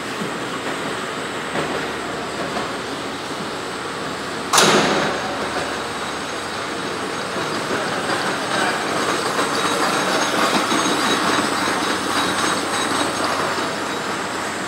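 Plastic film production line running: steady mechanical whir and rattle of its electric gear motors and rollers, with one sharp knock about four and a half seconds in.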